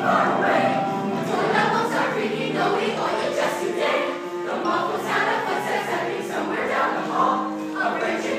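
A stage-musical ensemble singing together in chorus over musical accompaniment, with notes held and changing about once a second.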